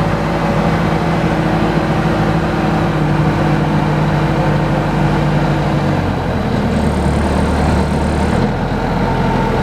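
Engine of a fork-equipped loader running steadily as it drives, its note dropping about six seconds in.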